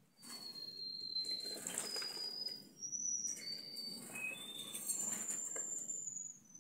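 Canary singing a run of high, drawn-out notes, each held up to about a second and stepping between different pitches, over the splashing and wing-fluttering of a canary bathing in a plastic bird bath.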